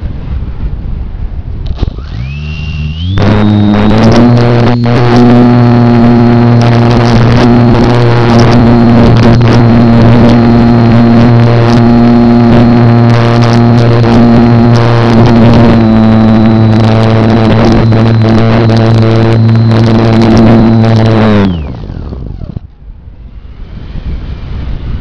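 Slow Stick RC plane's electric motor and propeller, heard from the onboard camera. It spools up with a rising whine about two seconds in, runs steadily and loud with a high whine over a low buzz, then winds down near the end. Wind rush on the microphone is left as the plane glides.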